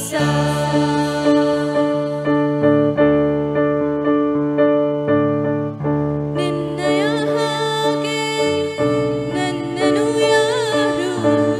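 Electronic keyboard playing held chords of a worship song; about six seconds in, a solo singing voice comes in over it.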